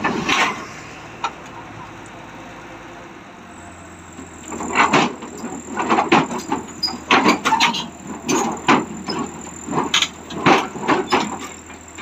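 Crawler bulldozer's steel tracks clanking and squealing against a steel truck bed as it creeps forward up the loading ramps, with an engine running low underneath. The clanks and squeals come in a loud, irregular run from about four and a half seconds in, after a single short one right at the start.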